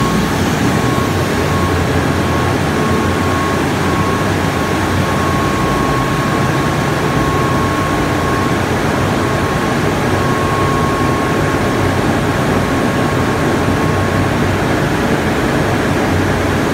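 Vertical electric-motor-driven centrifugal cooling-water pumps running, a loud steady machinery hum with a faint high whine that comes and goes.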